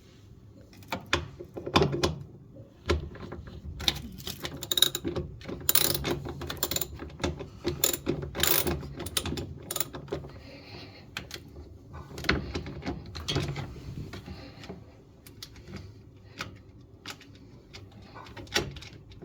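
Socket ratchet clicking in irregular runs as bolts are backed out of the metal cover under a washing machine, with clinks of the tool and metal parts. The clicking is densest in the first half and thins out later.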